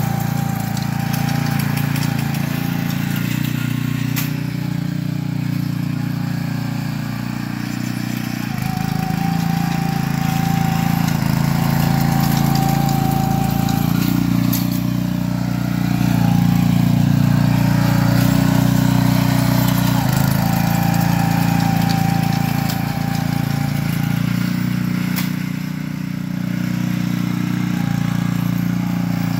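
The small single-cylinder engine of a Billy Goat walk-behind core aerator running steadily as the machine is pushed across turf, its level swelling and dipping a little, with a few sharp clicks.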